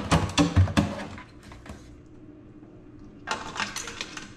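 Metal kitchen tongs clacking and knocking against a stainless steel sink and a stockpot while live crabs are picked up. A quick run of knocks and clicks comes first, then a short lull, then more clicks near the end.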